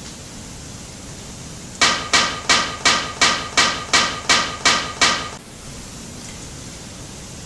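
Kyudo bow's release, the sharp snap of its old string breaking, repeated about ten times in an even stutter, roughly three a second, each snap ringing briefly. A waterfall rushes steadily underneath.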